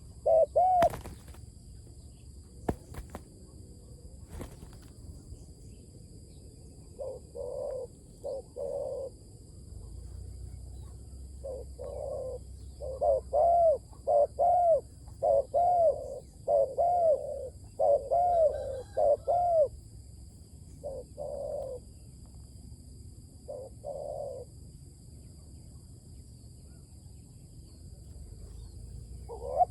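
Spotted dove cooing in repeated bursts of short arched coo notes, with quieter gaps between the bursts; it is the decoy bird calling. A few sharp clicks come in the first few seconds.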